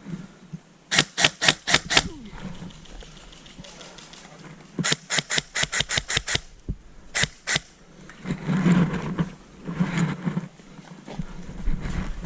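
Airsoft guns firing in quick strings of shots: about five, then about eight, then three. A muffled rustling noise comes later.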